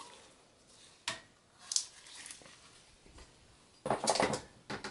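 Handling noise from a desktop motherboard and its sheet-steel computer chassis being moved by gloved hands: a few soft scattered knocks and clicks, then a short burst of clatter near the end.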